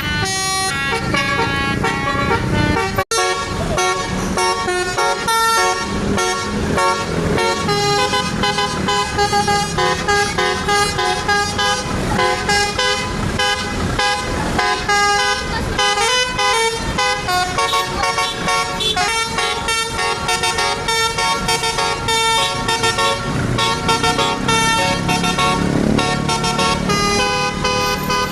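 Bus telolet horns playing melodies: several horn tones sound together and change pitch in quick steps, one tune after another. The sound cuts out for an instant about three seconds in.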